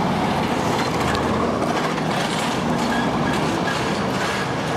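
Steady street traffic noise: an even, continuous rumble and hiss of passing vehicles.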